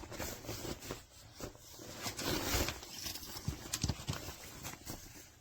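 Handling noise of a ski jacket: fabric rustling with scattered light taps and clicks, and a short rasping rip about two seconds in.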